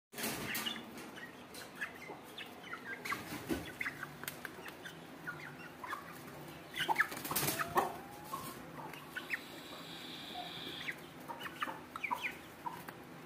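Aseel chickens clucking and making short high calls while they peck at the ground, with a louder scuffle about seven to eight seconds in.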